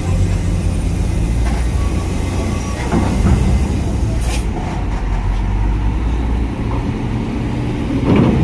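Heavy diesel trucks driving off a ferry's ramp onto a steel deck grating. Their engines run low and steady, with a few short knocks and clanks as the wheels cross the ramp and grating.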